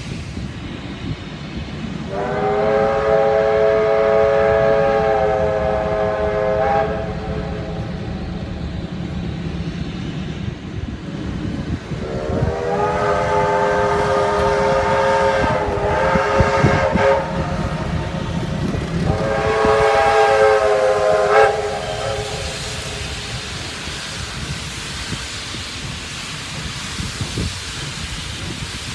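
Steam locomotive whistle sounding three long blasts, each a chord of several notes: two of about five seconds and a shorter one of about two seconds, over the low rumble of a moving train.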